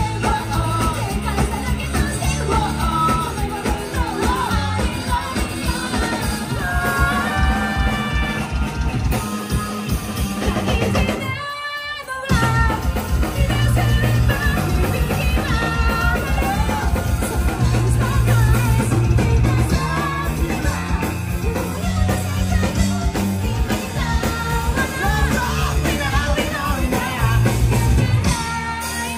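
Punk rock band playing live, with drums, electric guitars and shouted singing over a crowd. The music breaks off briefly near the middle, where it jumps to a different song.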